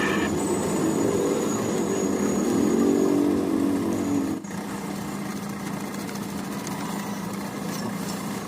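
Steady machine hum with a faint high whine, dropping in level about four and a half seconds in.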